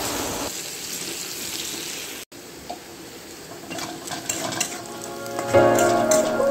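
Sliced onions and crushed garlic sizzling in hot oil in a kadai as they are stirred, with a few light scrapes of the spatula. The sizzle drops out briefly about two seconds in and returns quieter. Background music comes in near the end.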